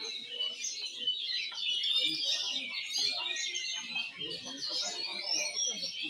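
Many oriental magpie-robins singing at once in a dense, continuous chorus of rapid chirps and whistles, with a murmur of people's voices underneath.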